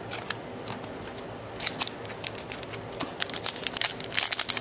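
Foil wrapper of an Upper Deck hockey card pack crinkling and crackling as it is handled and opened by hand. There are a few separate clicks at first, then a fast, dense run of crackles from about three seconds in.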